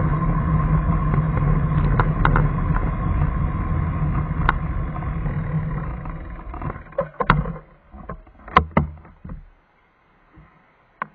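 Steady running rumble and hum of the vehicle carrying the camera, fading away as the vehicle comes to a stop at the kerb. A string of sharp clicks and knocks follows, then it goes almost quiet, with one more click near the end.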